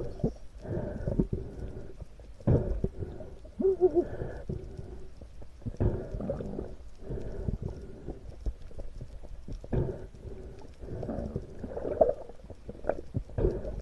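Muffled underwater sound heard through a camera housing: irregular low thuds and swishing water movement, with a few short wavering gurgles.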